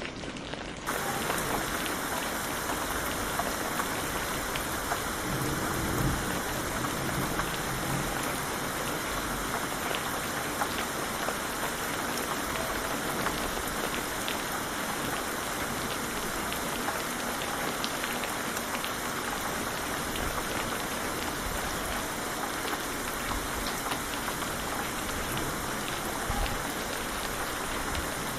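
Steady rain falling, an even hiss with scattered ticks of individual drops. About a second in, the rain turns brighter and a little louder.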